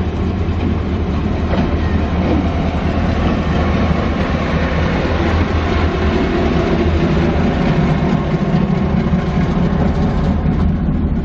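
Victorian Railways Y class diesel-electric locomotive Y133 passing close by at low speed, its diesel engine running with a steady low drone.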